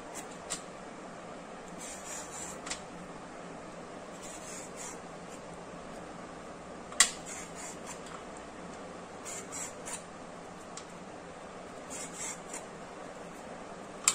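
Vegetable peeler scraping the ridged skin off a ridge gourd in short strokes every few seconds, with one sharp click about halfway through.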